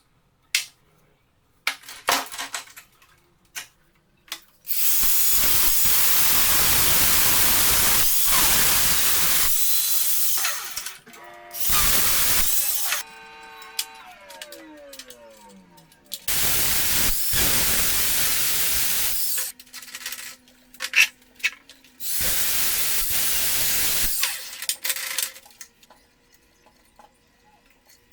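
Workshop noise: several loud bursts of hissing, each starting and stopping abruptly and lasting from about a second to six seconds, separated by clicks and knocks. After the second short burst a whine falls in pitch over a couple of seconds.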